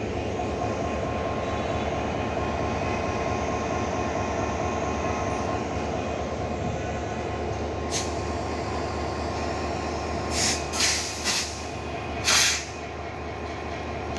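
EMD-built diesel locomotive standing at idle, a steady engine drone with a low hum and a faint steady whine. One short hiss about halfway through and three or four more near the end, the last of them the loudest.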